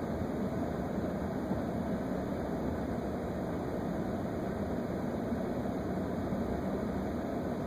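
Steady low rumble of an emergency vehicle's idling engine, heard from inside the cab.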